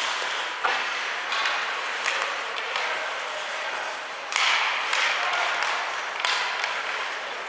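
Ice hockey play echoing in a rink: a steady hiss of skates on ice with several sharp knocks of stick, puck and boards, the loudest about four seconds in.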